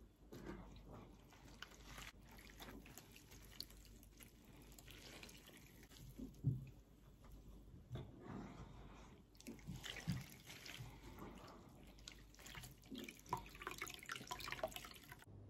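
Hands squeezing soaked banana blossom, wringing out its soaking water, with faint, irregular drips and splashes.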